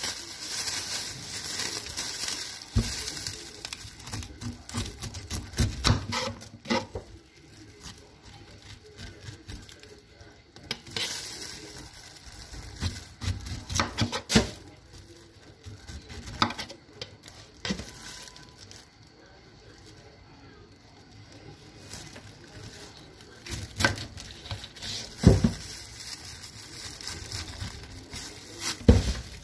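Kitchen knife slicing down through a pineapple's tough rind in irregular cutting strokes, each a crisp scraping crunch, with quieter stretches between bouts.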